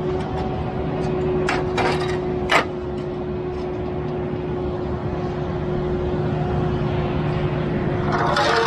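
A truck engine running steadily at a raised speed, with a few sharp knocks about one to two and a half seconds in. A louder rushing noise builds near the end.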